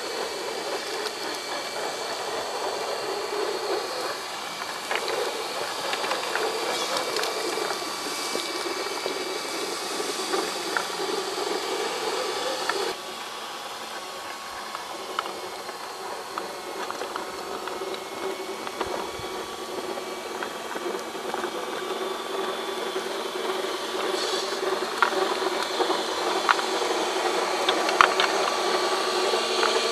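Electric motor and gear drivetrain of a 1:10 scale RC crawler whining steadily as it crawls over loose rock and dirt, with scattered clicks and crunches from the tyres on gravel. The whine drops in level suddenly about thirteen seconds in and builds again toward the end.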